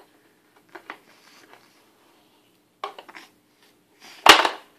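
A few faint plastic clicks as a baby handles a pound-a-ball toy, then about four seconds in a single sharp plastic clunk as a ball is pushed through its hole and drops into the toy.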